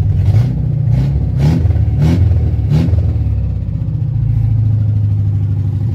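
Toyota K-series four-cylinder engine, swapped into a small old Mercedes, revved by the accelerator pedal: about five quick blips in the first three seconds, each rising in pitch, then settling back to a steady idle.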